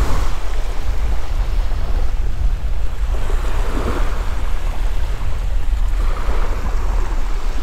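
Small surf waves washing up on a sandy beach, swelling and falling back a couple of times, under a steady low rumble of wind on the microphone.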